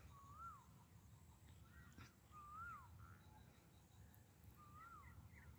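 Asian koel calling faintly: a clear whistled note that rises and then drops away, repeated three times about two seconds apart.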